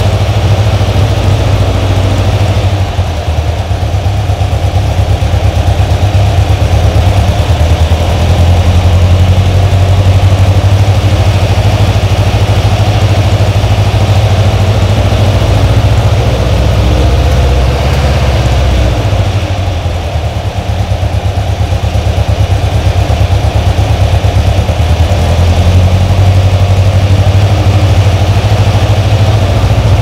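Air-cooled VW Beetle flat-four engine with twin carburettors idling steadily through a 48 mm merge-collector header, 150 mm muffler and twin tailpipes, giving a deep exhaust rumble. Its level eases briefly about three seconds in and again around twenty seconds in.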